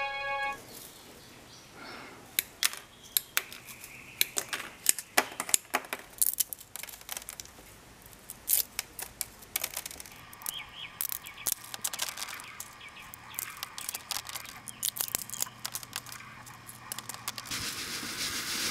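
Dry kale seed pods crackling and snapping as they are crushed by hand in a plastic tub, a long run of sharp irregular clicks. Near the end, a steady rattling hiss as the loose seeds are poured from the tub into a plastic zip bag.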